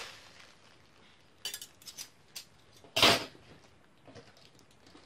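Handling noise of metal tweezers and a container: a few light clicks, then one loud clatter about three seconds in.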